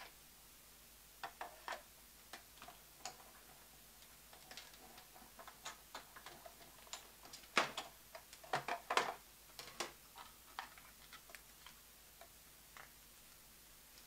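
Scattered light clicks and taps of a paper feather being die-cut: the thin metal die, cardstock and plastic cutting plates handled and run through a die-cutting machine. The loudest taps come in a cluster a little past halfway.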